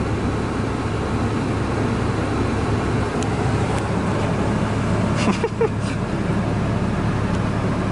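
Dodge Ram pickup running, a steady low hum under an even rush of cabin noise heard from inside the cab, with a brief voice about five seconds in.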